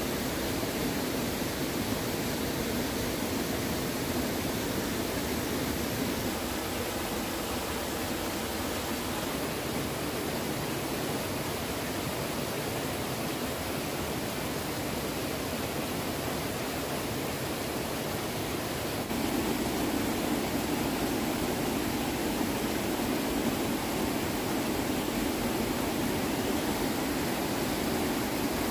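Steady rush of flowing stream water, a little louder from about two-thirds of the way through.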